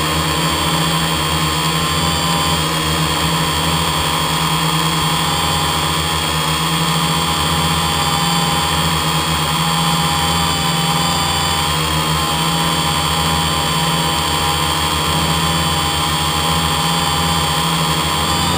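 Quadcopter's electric motors and propellers running steadily while it hovers, heard from the camera mounted on it: a steady whine whose pitch wavers slightly as it holds position.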